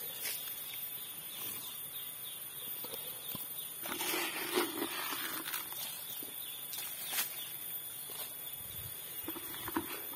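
Outdoor ambience: a steady high-pitched insect drone, with scattered light rustles and crackles of movement over damp leaf litter, the clearest about four and seven seconds in.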